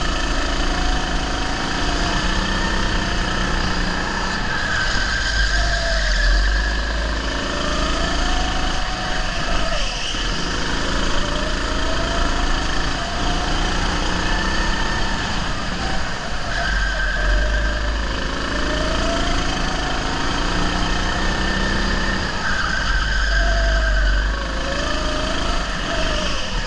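Go-kart engine heard from the driver's seat under racing load, its pitch rising and falling again and again as the kart speeds up and slows through the laps, over a heavy low rumble.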